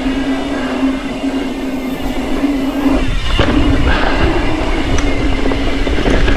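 Mountain bike's rear freehub buzzing steadily as the rider coasts along a dirt singletrack, over the rumble and rattle of the tyres and bike on the trail. The buzz breaks off briefly about three seconds in, then comes back.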